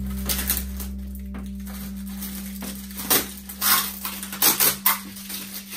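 Clear plastic wrapping and tape crinkling and crackling as protective packaging is pulled off a 3D printer, with several loud crackles in the second half over a low steady hum.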